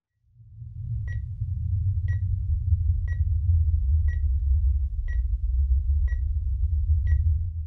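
Hospital patient monitor beeping steadily, seven short high beeps about a second apart, over a deep low rumble that fades in at the start and stops at the end.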